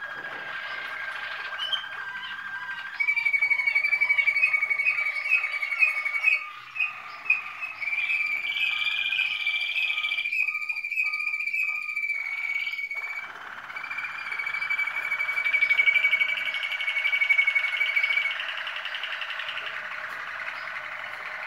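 Malinois Waterslager song canaries singing long tours held on a steady pitch, with fine trills and rapid repeated notes. The song grows loud about three seconds in, dips briefly midway, and eases off near the end.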